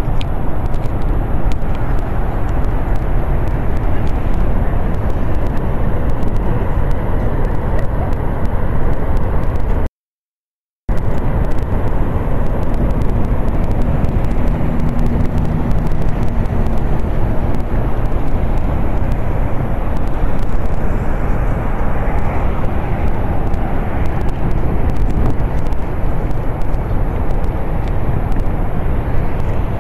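Steady roaring rush of Niagara Falls, a dense even noise heavy in the low end, cut off for about a second roughly ten seconds in.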